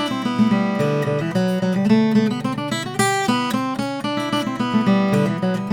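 Steel-string acoustic guitar playing a tune of quick plucked notes and chords over bass notes.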